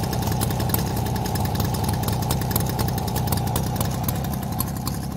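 A moped's small two-stroke single-cylinder engine idling steadily, with a fast, even patter of firing.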